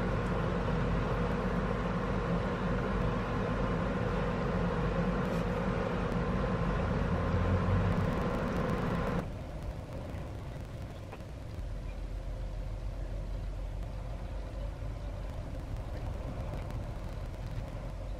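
A steady mechanical hum with a hiss, which drops abruptly to a quieter hum about nine seconds in.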